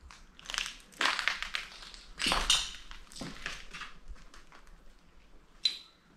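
Footsteps crunching and crackling over debris on the floor, several irregular crunches, then a single sharp clink with a short ring near the end.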